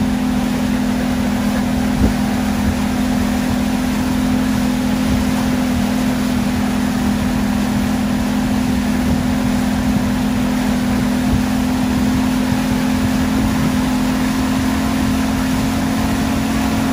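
Tow boat's engine running steadily at towing speed: a constant low drone over an even hiss.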